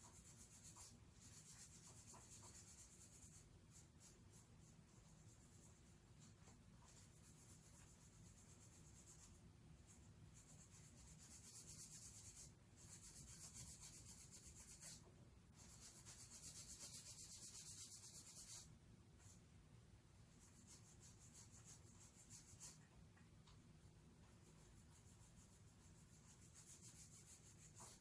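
Near silence: a faint steady hum with soft scratching or rubbing noises that come and go, strongest in a few stretches of two to three seconds around the middle.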